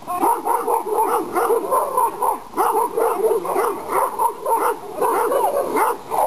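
A dog barking rapidly and without pause, with some higher yips mixed in, at a man acting as an attacker during protection training.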